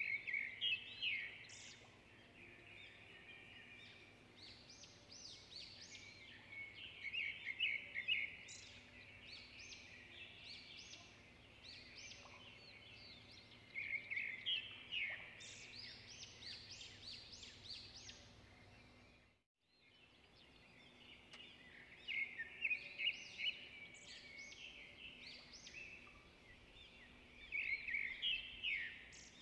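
Small birds chirping and trilling in quick bursts every few seconds over a faint steady hum, with a brief drop-out to silence about two-thirds of the way through.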